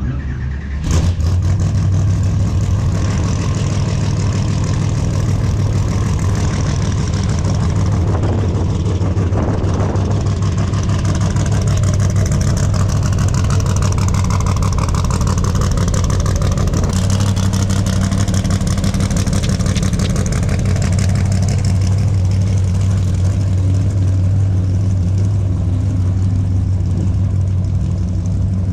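A motor vehicle's engine running steadily and loudly, stepping up about a second in and then holding an even, continuous note.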